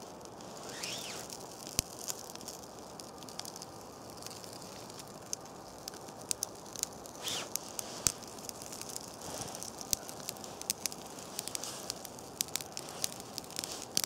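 Small campfire of birch bark and damp twigs crackling as it catches, with many sharp irregular pops.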